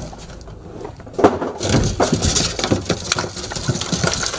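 Boxes and wooden boards being moved and knocked about behind a shop counter: quieter shuffling at first, then from about a second in a busy run of rustling, scraping and knocks.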